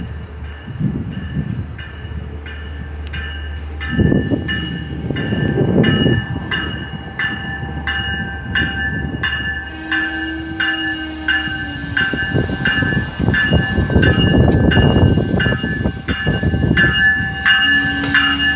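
Long Island Rail Road C3 bi-level commuter train, cab car leading, rolling into the station and past with a heavy rumble that grows as it comes close, while a warning bell rings in even strokes, about one and a half a second.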